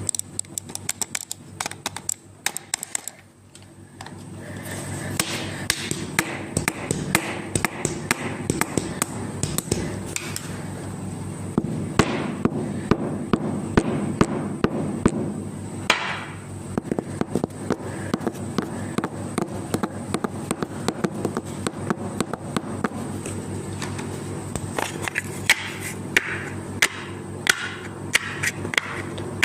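Many sharp taps and knocks, irregular and at times rapid, over a steady low hum.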